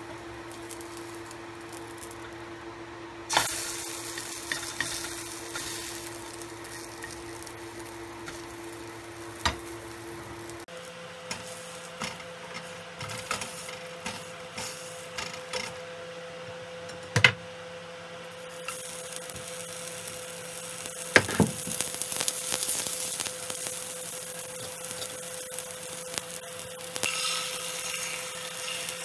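Egg frying in oil in a nonstick pan, sizzling, with spatulas scraping and now and then knocking against the pan. The sizzle grows stronger in the second half, over a steady hum.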